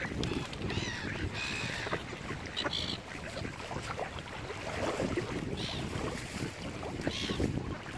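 Wind buffeting the microphone over water lapping at the lakeshore, with several short, high bird calls.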